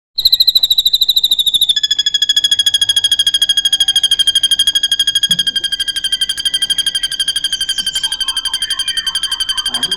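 A drongo singing one long, rapid trill of high, clear notes, about a dozen pulses a second. The trill drops a little in pitch about two seconds in and then holds steady.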